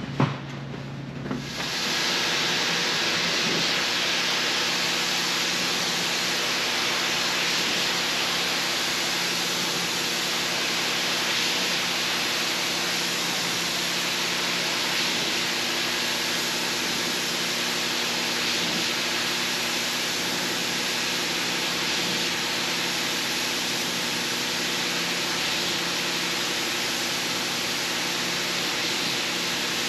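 Rug-cleaning machine starting up about a second and a half in, then running without change: a strong, even hiss over a steady motor hum.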